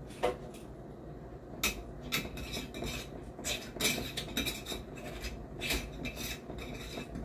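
A glass mason-jar dispenser with a pump top being handled while string is tied in a bow around its neck: irregular small clicks, knocks and clinks of glass, starting a moment in and coming thick from about a second and a half on.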